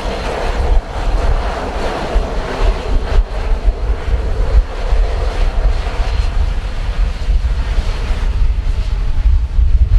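Strong, gusty wind buffeting the microphone, with the engine roar of a taking-off aircraft fading away over the first few seconds.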